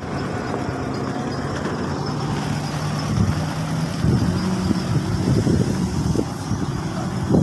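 Diesel engine of a heavily stone-loaded Mercedes truck running steadily at low speed close by, a low hum that turns rougher and more uneven from about three seconds in.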